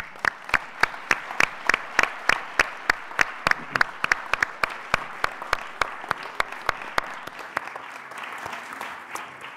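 Audience applauding, with one set of hands clapping loudly and close at about four claps a second. Those close claps stop about seven seconds in and the applause dies away toward the end.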